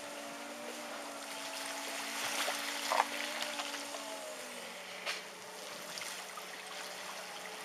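A car horn sounding on its own in floodwater, a steady two-note tone whose pitch sags lower about four and a half seconds in, over the rush of flowing water. A sharp knock comes about three seconds in and a fainter one about five seconds in.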